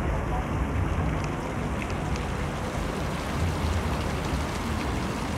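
Water splashing steadily from a thin wall-fountain spout into a canal pool, with a fluctuating low rumble of wind on the microphone.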